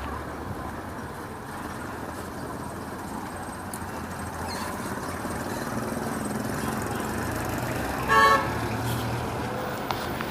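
Street traffic noise that slowly grows louder, with one short vehicle horn toot about eight seconds in.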